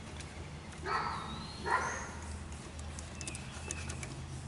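A dog barking twice, short barks a little under a second apart, over a steady low hum.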